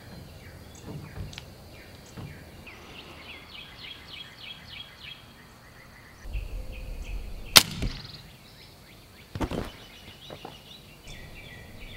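A CO2-powered ball-bearing air rifle, built from a paintball marker, fires once with a single sharp shot about seven and a half seconds in. A second, weaker sharp knock follows about two seconds later, and birds chirp in the background.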